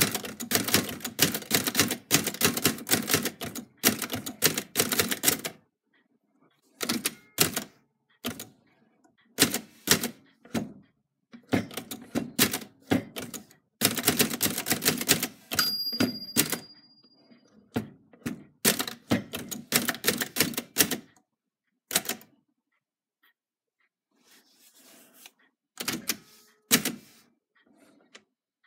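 Manual typewriter typing in quick bursts of key strikes, the type bars clacking against the platen, with short pauses between words and runs. A brief bell-like ring sounds about halfway through, and the strokes thin out and grow fainter near the end.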